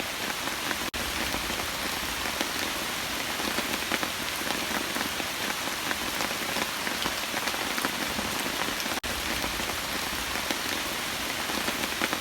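Steady rain falling, a constant hiss full of many separate drop hits. The sound cuts out for an instant twice, about a second in and near nine seconds.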